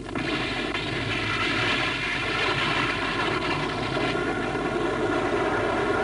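Animated sound effect: a steady, engine-like drone with a rushing noise, as of something flying at speed.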